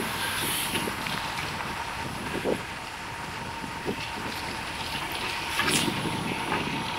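City street traffic noise: a steady rush with a few small clicks and knocks.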